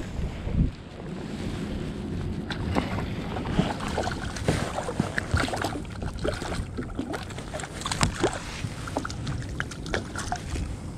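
Wind rumbling on the microphone and water lapping against a kayak hull, with many small clicks and splashes. Near the end a hooked fish splashes at the surface beside the kayak.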